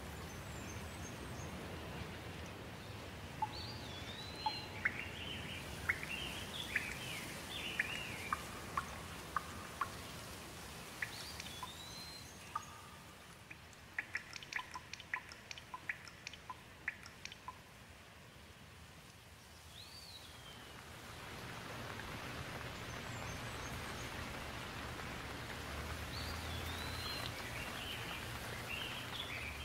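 Steady rain, with birds chirping over it several times. Around the middle the rain eases and a run of sharp drops tapping close by stands out, then the rain picks up again.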